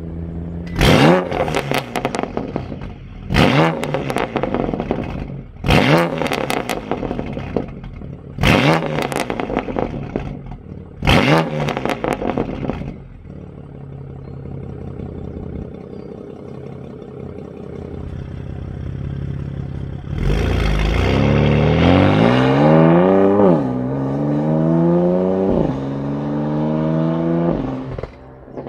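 BMW M2 Competition's twin-turbo straight-six running through catless downpipes and an Active Autowerks midpipe: five sharp revs about two and a half seconds apart, each with crackle as the revs fall, then idling, then a long pull with two upshifts near the end.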